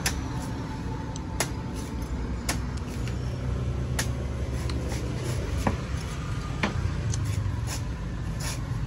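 Heavy knife chopping into the husk of a young green coconut: sharp strokes, irregular, roughly one every second or so, over a steady low rumble.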